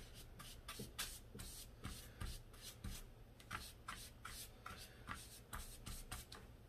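Wide flat paintbrush stroking wet watercolour wash onto paper: faint, quick repeated brushing swishes, about three or four a second.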